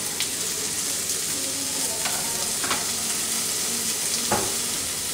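Onion, ginger-garlic, green chilli and tomato masala frying in hot oil in a pan, with a steady sizzle. Three sharp knocks of the stirring utensil against the pan are heard.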